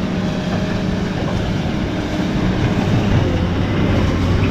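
Wheel loader's diesel engine running steadily as the machine pushes snow with a plow blade: a low engine drone that grows a little louder in the second half.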